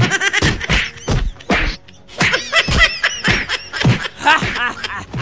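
A run of whacks, about two a second, as a prop weapon strikes a man, then a man laughing loudly in a long 'ha-ha-ha', with one more whack in between: he is laughing off the blows.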